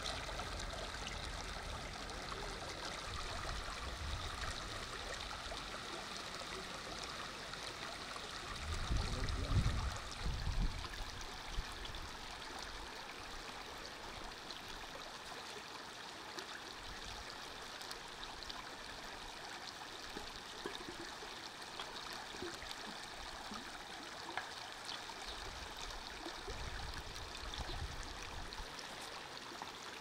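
A stream running steadily, an even rush of water, with a few brief low rumbles about a third of the way through.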